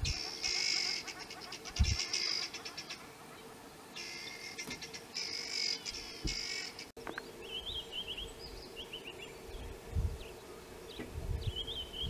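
Insects shrilling in repeated pulsed bursts, each lasting about half a second to a second. About seven seconds in, the sound changes abruptly to a small bird chirping in short runs of quick notes. A few low thumps are heard along the way.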